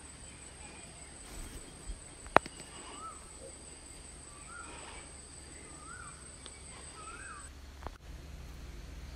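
Forest ambience: a steady high-pitched insect drone, with a bird repeating short rising-and-falling call notes about once a second. A single sharp click a little over two seconds in is the loudest sound, and the insect drone stops near the end.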